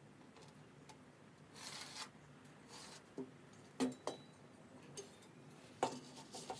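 Pencil scratching across canvas in two short strokes, then a series of sharp clacks and knocks as a drywall square ruler is handled and set against the plywood board, the loudest about four and six seconds in.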